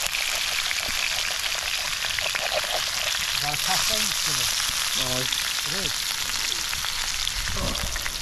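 Food sizzling and spitting in a pan over a campfire: a steady, crackling hiss.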